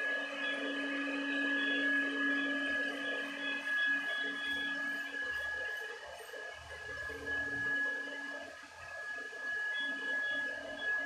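Handheld electric fogger spraying sanitizer, its motor running with a steady whine that dips slightly in loudness partway through.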